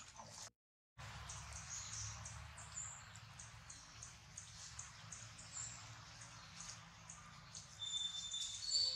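Forest background after a brief dropout: a run of short high chirps several times a second over a steady hiss, joined near the end by a steady high whistling tone.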